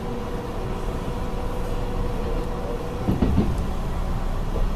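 Steady rumble of an Amtrak passenger coach rolling along the rails, heard from inside the car, with a thin steady tone over it that stops about three seconds in, then a brief louder bump.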